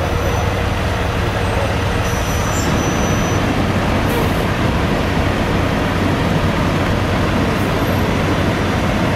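Engines of an ambulance and a fire engine running as the vehicles crawl forward at walking pace: a steady low engine noise with no sirens. The sound grows a little fuller about two and a half seconds in.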